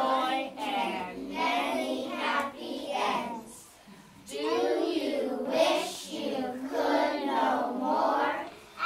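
A group of young children singing together in phrases, with a short pause about four seconds in.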